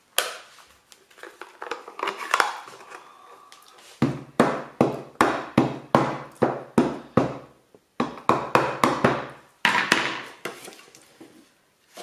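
A Stampin' Up! Basic Black ink pad dabbed over and over against a stamp on a clear acrylic block to ink it. It makes quick plastic taps, about three a second, in two runs starting about four seconds in, with a brief break between them. Before the taps and after them there is quieter handling and rustling of paper.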